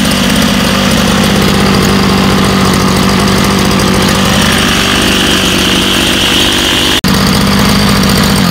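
Homelite Bandit SX-135 25cc two-stroke string trimmer engine running steadily at a low idle; with no clutch, the trimmer head spins even at idle. The sound cuts out for an instant about seven seconds in.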